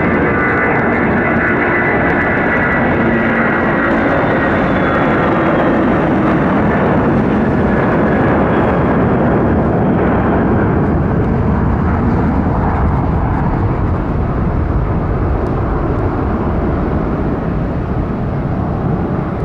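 Jet airliner's engines as it passes: a high whine with a slowly falling tone in the first few seconds, giving way to a broad, steady rumble that eases slightly near the end.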